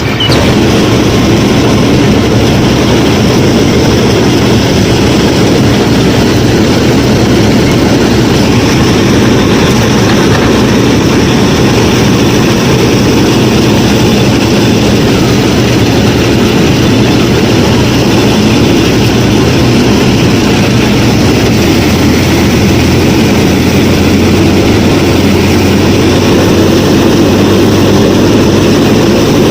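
A small motor-driven model farm machine running steadily, giving a loud, constant whirring hum with no change in speed.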